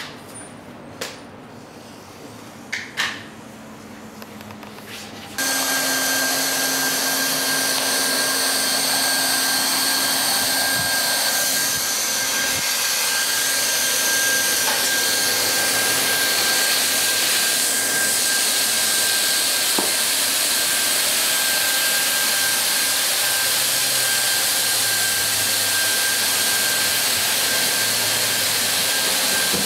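A few light clicks, then about five seconds in a hot-air plastic welding gun starts up and runs steadily, its blower hissing with a high whine. It is melting a PVC welding rod into the seam of vinyl sheet flooring.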